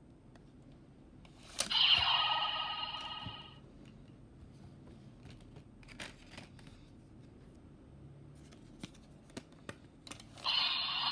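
DX Chemy Riser toy belt: a plastic click, then a loud electronic sound of about two seconds from its small speaker. Quiet plastic clicks and rustling follow as a card is slid out and another slid in, and near the end the toy starts another loud electronic sound as the new card goes in.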